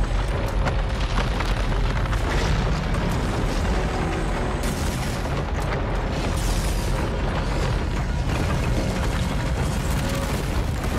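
Film sound design of the ground splitting open: a continuous deep, heavy rumble with scattered crackling, under background music.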